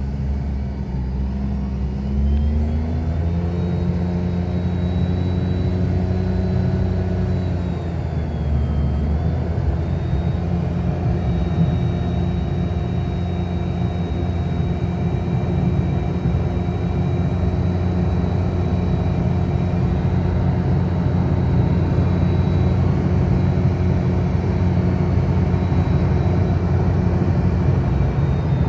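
Daihatsu Mira's 650 cc naturally aspirated three-cylinder engine and CVT transmission under way on the road: a steady engine drone with a thin high whine. Both rise in the first few seconds, dip briefly about eight to nine seconds in, then hold steady; the sound is normal for this car.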